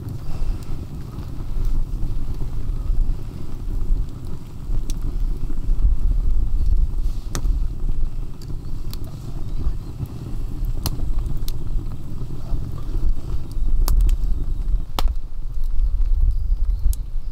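Split-log wood fire crackling in a stone fireplace, with occasional sharp pops every second or two over a steady low rumble.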